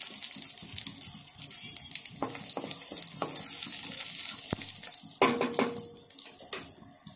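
Crushed garlic cloves frying in hot oil in a kadai with a mustard seed, urad dal and cumin tempering: a steady sizzle with fine crackling pops, stirred with a wooden spatula. A brief louder sound about five seconds in.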